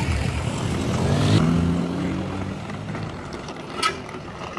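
Heavy diesel engine of a Shacman dump truck revving up over the first second and a half, holding, then easing off about three seconds in, as the stuck truck is worked back onto the road. A brief sharp sound near the end.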